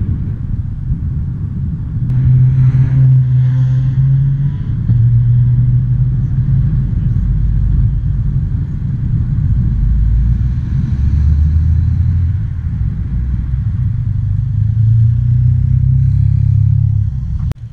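Low rumble of road traffic: car and motorcycle engines running close by at a shifting low pitch. It drops off suddenly near the end.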